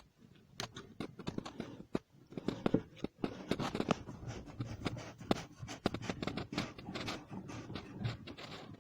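Electrical tape being pulled off its roll and wrapped around a threaded plastic pipe joint: a steady stream of irregular crackles and short tearing sounds.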